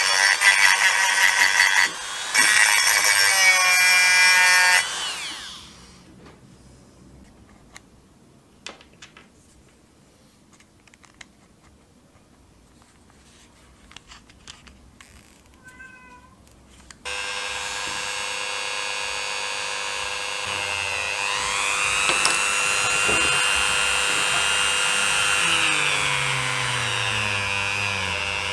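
Handheld rotary tool running at high speed with a steady high whine as it sands a metal figurine, then winding down about five seconds in. Faint clicks follow while a new bit is fitted into the collet. The tool then starts up again and runs steadily with a polishing wheel on the metal, its pitch shifting a little partway through.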